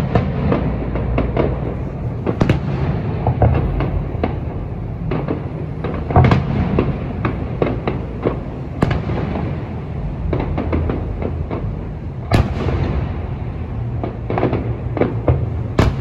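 Fireworks display: a constant run of bangs and crackles, with five louder sharp bangs spread across it a few seconds apart.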